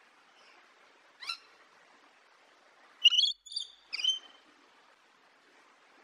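Rainbow lorikeet calling: one short rising call about a second in, then a quick run of three high-pitched calls about three to four seconds in.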